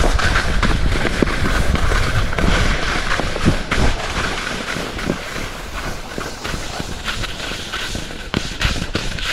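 Skis sliding and chattering over firm, rutted spring snow, with wind buffeting the microphone; the rumble and hiss ease off near the end as the skier slows toward the group.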